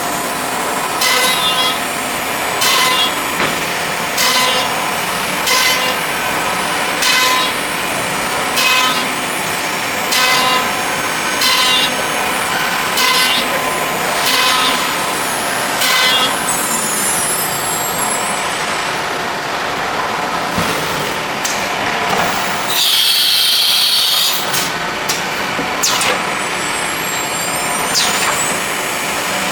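CNC nesting router running, its spindle cutting wood panel with a steady whine and a cutting burst about every second and a half. A pitch-sliding whine comes partway through and again near the end. A brief loud hiss of air comes about two-thirds of the way in.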